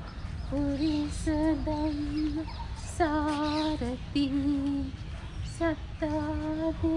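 A woman's voice singing a slow chant in long, held notes with small bends in pitch and short breaks between phrases, over a low rumble.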